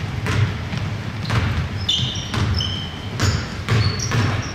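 A basketball being dribbled on a hardwood gym floor, a thud every half-second to second, with short high sneaker squeaks from players moving on the court around two and four seconds in.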